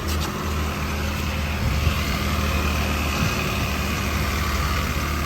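2002 Acura MDX's 3.5-litre V6 idling steadily, just restarted after an oil drain, refill and new filter.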